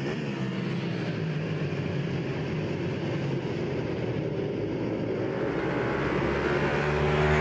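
A pack of racing superbikes running at high revs together, many engines overlapping with pitches shifting. The sound grows louder near the end as the bikes come closer.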